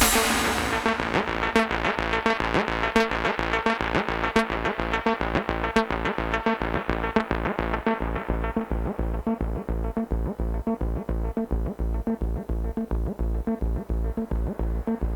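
Electronic music played on hardware synthesizers: a fast, evenly pulsing synth sequence with a deep low end. The heavy drum hits drop out at the start, and the sound's brightness fades gradually over the first half, leaving a darker, duller pulse.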